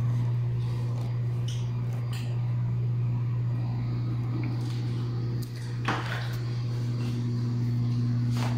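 A steady low hum, with a couple of faint knocks about six seconds in and near the end.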